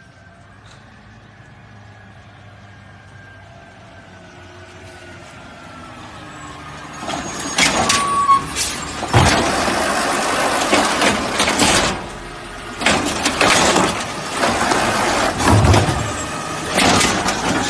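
Garbage truck: a low engine hum at first, then, about seven seconds in, loud bursts of hissing and clattering noise that drop off briefly near the twelve-second mark before starting again.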